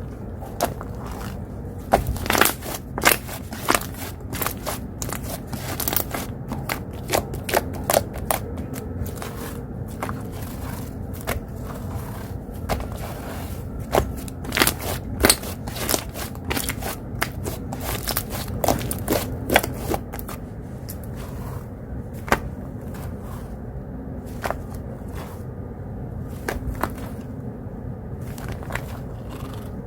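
Slime being squished and stretched by hand: a rapid run of sharp pops and crackles, thick for the first twenty seconds or so and then sparser. A steady low background rumble lies underneath.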